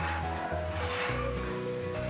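Instrumental background music: a run of steady notes over a repeating bass line, with a soft swish about once a second.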